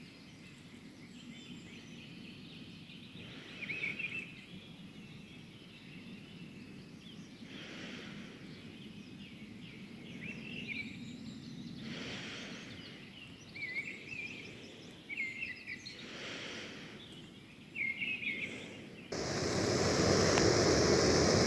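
Mistle thrush song at dawn: short warbled phrases repeated every few seconds, with soft, slow heavy breathing beneath them. Near the end the sound cuts to a louder, steady rushing noise.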